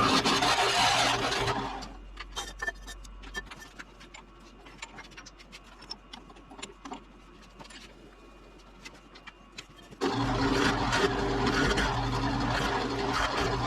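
An electric shop machine runs with a steady hum, stops about two seconds in, leaving light clicks and knocks of metal being handled, then starts up again about ten seconds in.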